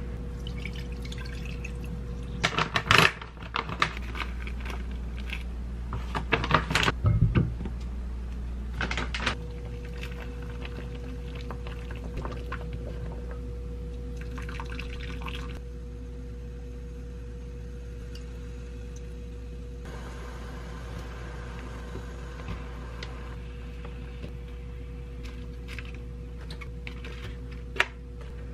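Cooking at a pot: liquid poured into the pot, with clatter of the pot and its glass lid, mostly in the first third, and a single sharp click near the end, over a steady hum.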